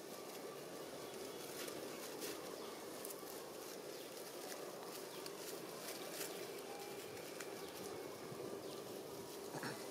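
Dry leaf litter crackling and rustling in scattered light clicks as macaques shift and crawl over it, over a steady outdoor background hum.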